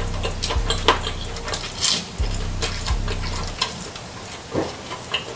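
Close-up mouth sounds of eating grilled chicken inasal leg: wet chewing and lip smacks, as a string of irregular sharp clicks.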